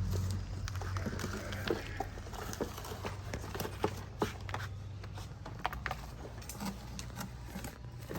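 Toy construction vehicles at work: a low steady motor hum with scattered short scrapes and clicks, as of dirt or gravel being moved.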